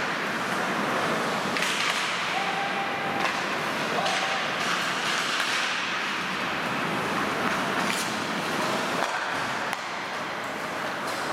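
Ice hockey play: skate blades scraping the ice in a steady wash of sound, with sharp clacks of sticks and puck every second or two.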